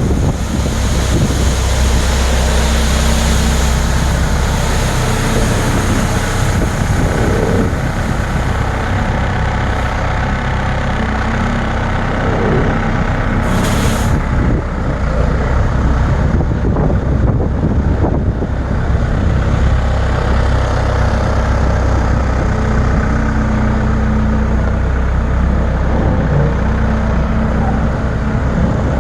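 Heavy diesel machine engine running steadily under load, with a steady rushing noise over it and a short hiss about 14 seconds in.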